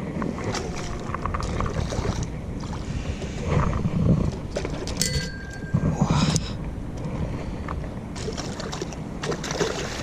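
Wind rumbling on the microphone, with a few louder bumps about four and six seconds in and a brief thin tone near the middle.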